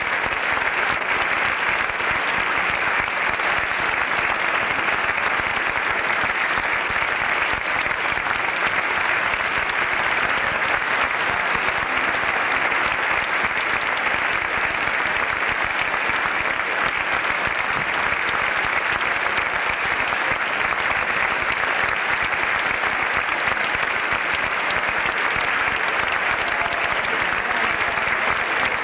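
Theatre audience applauding steadily, a dense, even clapping that does not let up.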